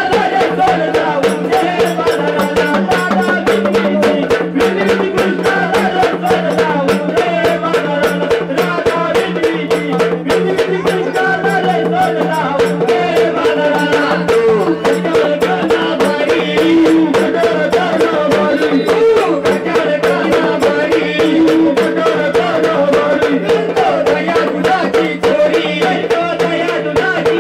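Marathi folk devotional song in the waghya-murali gondhal style: singing over a steady held drone, with fast, even rattling percussion keeping the beat throughout.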